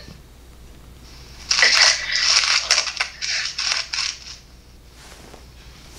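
Wet licking and slurping mouth noises made close to a phone microphone and heard over a video call: a run of crackly smacks lasting about three seconds, starting about a second and a half in.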